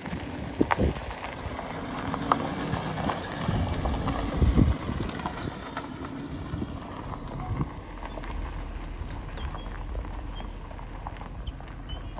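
Engine of a lowered Nissan 180SX-style car running as it rolls slowly over a gravel driveway, with the tyres crunching on the stones. The crunching is loudest about four and a half seconds in.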